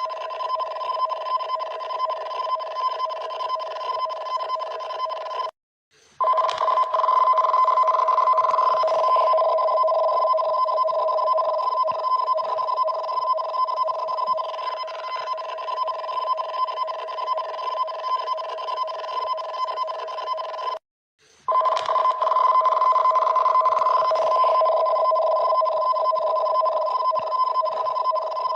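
Emergency alert attention signal for a tsunami warning: two steady tones sounding together, cutting out for about half a second twice, around 6 seconds in and again 15 seconds later, then resuming.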